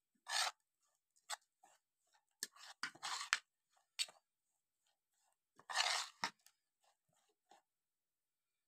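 Steel spoon and fork scraping and clinking against a ceramic plate while stirring a thick, gritty spice-and-gram-flour paste. The scrapes come in short irregular strokes, with two longer spells of mixing about three and six seconds in, then stop before the end.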